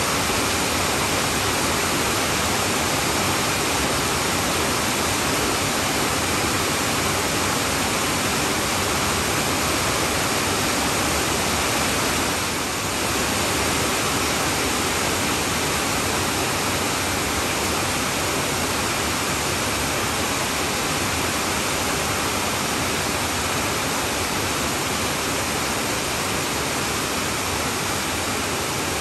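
Heavy rain falling on a tin roof: a dense, steady hiss of countless drops, easing very slightly for a moment near the middle.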